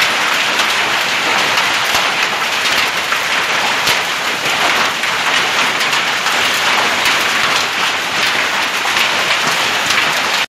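Hail and heavy rain falling: a dense, steady hiss of rain with scattered sharp clicks of hailstones striking hard surfaces.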